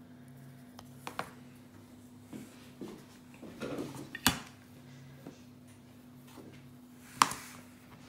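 Sharp knocks of a ceramic dinner plate being handled on a worktop, three of them, the loudest about four seconds in and near the end, with softer handling noise between them and a steady low hum underneath.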